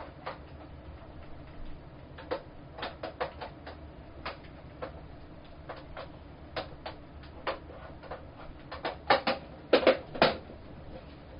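Irregular plastic clicks and knocks as a diffuser cover is handled and snapped onto an 18-inch Neewer ring light, with a cluster of louder, sharper clicks about nine to ten seconds in.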